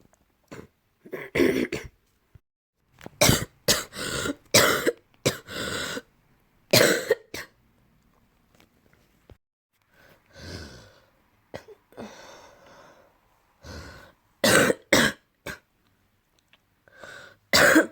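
A person coughing with phlegm in the throat: repeated bouts of short coughs, with a quieter stretch of softer throat sounds about ten to thirteen seconds in.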